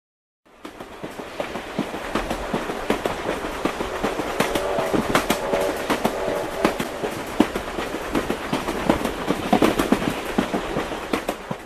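Train running on rails, its wheels clicking rapidly over the rail joints, with a brief squealing tone near the middle. It fades in and fades out.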